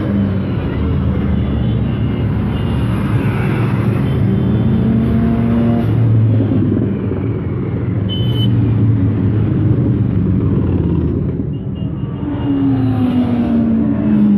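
A procession of motorcycles riding past one after another, engines running continuously. Several engine notes fall in pitch as bikes go by, most clearly near the end.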